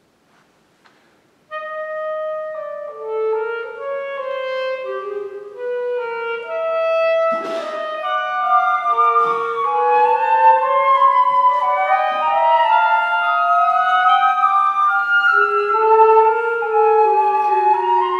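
Woodwind quintet (flute, oboe, clarinet, bassoon and horn) playing contemporary chamber music. It begins about a second and a half in after near silence, with voices entering one over another and one line sliding slowly upward. There is a sharp percussive accent partway through.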